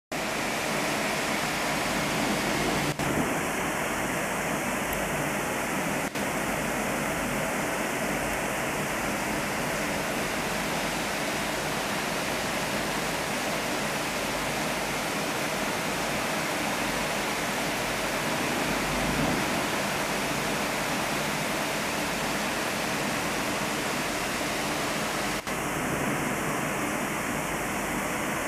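Steady rain pouring down in a thunderstorm, falling onto a swimming pool and its surroundings.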